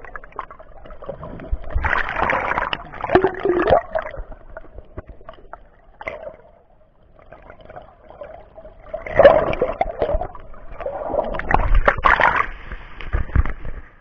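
Sea water sloshing and splashing close to the microphone, in two loud surges, one about two seconds in and a longer one from about nine seconds.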